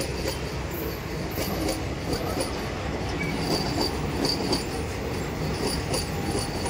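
Indian Railways passenger coaches rolling past at close range: a steady rumble of wheels on rail, with repeated sharp clicks scattered through it.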